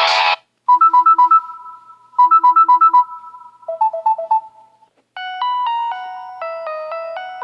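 Android phone ringtone and notification tone previews played one after another. A guitar tune cuts off just after the start, then an electronic tone of quick alternating two-note beeps sounds twice, followed by a lower, softer run of beeps. Another stepped electronic melody begins about five seconds in.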